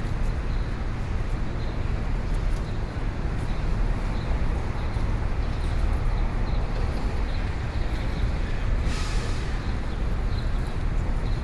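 City street ambience: a steady, low rumble of traffic, with a short hiss near the end.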